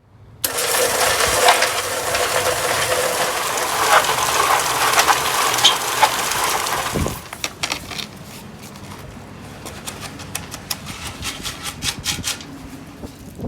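Water spraying from a garden hose for about seven seconds, then cutting off. Quieter scattered clicks and light scrapes follow.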